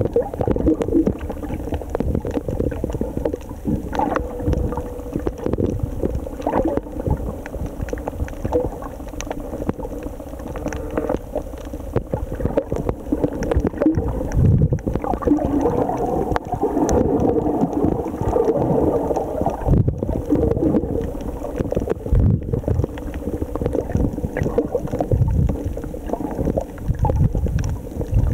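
Muffled underwater audio from a camera held beneath the surface: water sloshing and gurgling, with uneven low rumbling.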